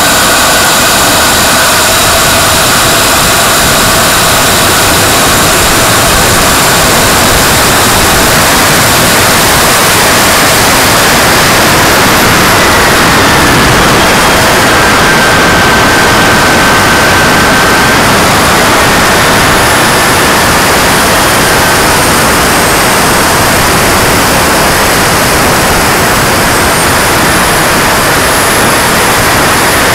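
Shockwave RC jet's model turbine engine running at high power through its takeoff run and climb, heard from a camera mounted on the plane: a high whine over a loud, steady rush of air, the whine dipping and rising in pitch several times with the throttle.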